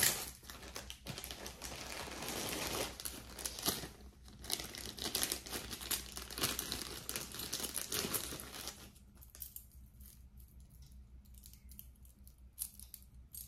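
Packaging bags crinkling and rustling as they are handled during an unboxing, busiest for about the first nine seconds. After that it quietens to a few light clicks.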